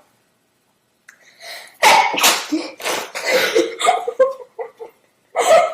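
A young woman sneezing several times in quick succession from about two seconds in, with another sneeze near the end.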